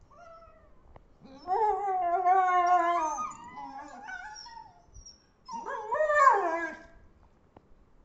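Dogs play-fighting, one giving drawn-out, high, moaning howl-like growls. A brief one comes near the start, a long one of about two seconds about a second and a half in, and a shorter one that rises and falls about five and a half seconds in.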